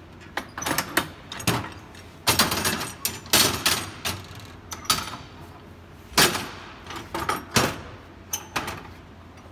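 Iron pipe clamps being loosened and taken off a glued-up wooden panel: a run of metal clanks, knocks and rattles from the pipes and clamp jaws, with the sharpest clanks about a second in, around three and a half seconds in and about six seconds in.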